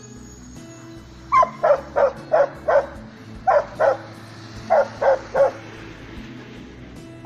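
Bhotia sheepdog barking: ten short barks in three quick runs, five, then two, then three.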